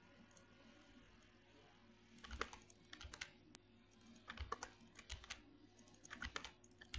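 Faint computer keyboard typing, in short clusters of a few keystrokes each, beginning about two seconds in.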